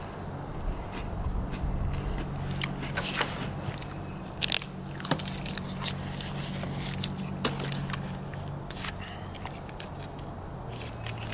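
Small paper-foil alcohol prep pad packets being torn open and handled, giving scattered short crinkles and crackles. A steady low hum runs underneath and shifts in pitch near the end.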